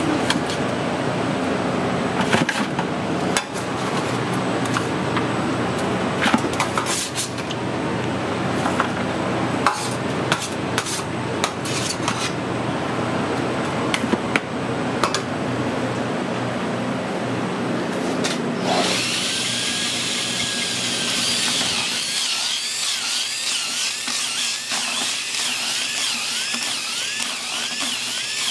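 Clicks and scrapes of a metal spatula against a steel pan and bucket as smoked pork is pulled, over a steady kitchen hum. About nineteen seconds in, a power drill fitted with a shredding paddle starts up inside a plastic bucket of pork; its whine rises and falls about twice a second as it shreds the meat.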